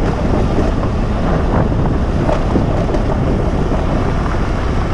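Steady wind buffeting the microphone of a motorcycle riding a dirt track, with the engine running underneath.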